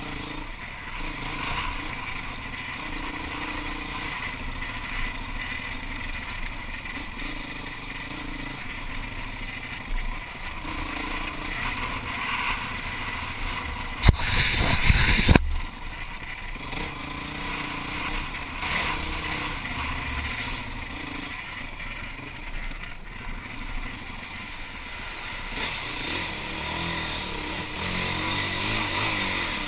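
Dirt bike engine running on the move, its pitch rising and falling with the throttle, heard from the rider's helmet camera. About 14 s in, a loud rushing burst lasts about a second and a half and cuts off sharply.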